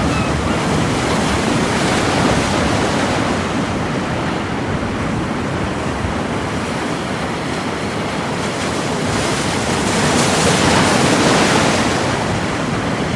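Sea surf breaking and washing on a beach: a steady rushing that swells about two seconds in and again near the end.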